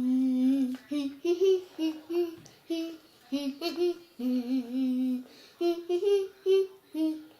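A child singing or humming a wordless tune: a string of short notes moving up and down, with two longer held notes near the start and about halfway through.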